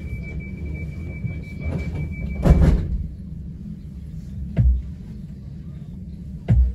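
Cabin noise of a Southern Class 377 electric train on the move: a steady low rumble, with three heavy thumps about two seconds apart. A thin high whine stops at the first thump, about two and a half seconds in.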